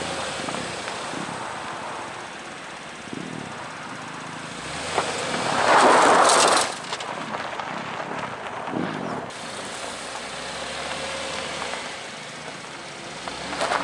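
Cadillac SRX SUV working its way slowly over rough dirt ground, with its tyres crunching and its V6 engine running low underneath. About six seconds in, a loud rush of noise rises and cuts off again after roughly a second.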